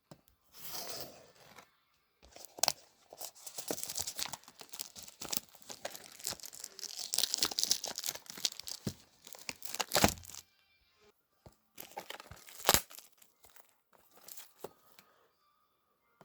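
Packaging of a USB-C to 3.5 mm audio adapter being handled and torn open: irregular crinkling and tearing with a few sharp snaps, the loudest about ten and twelve seconds in, quieter handling near the end.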